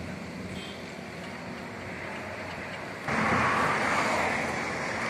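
Steady outdoor roadside noise of traffic, with no distinct events; it gets louder and brighter about three seconds in.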